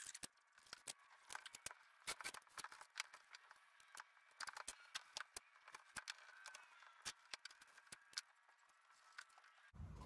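Automotive masking tape being pulled off the roll, torn and pressed down by hand: faint, irregular crackles and ticks. Near the end it cuts abruptly to a low steady hum.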